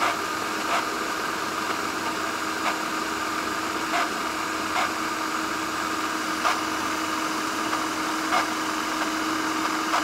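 Electric food processor motor running steadily with a constant hum, blending eggs while cooking oil is trickled in to emulsify them into mayonnaise. A few short, faint clicks come through at irregular moments.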